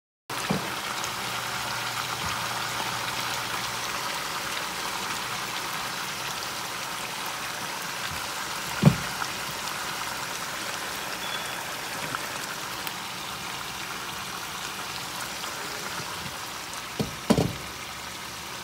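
Fish pieces frying in oil in a pan, a steady sizzle that fades slightly. A sharp knock about nine seconds in and two more near the end.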